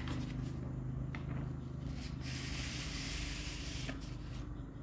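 Sheets of paper being handled and slid across a desk: a soft rustle with a couple of light taps, and a steadier sliding hiss from about two seconds in that stops near the end.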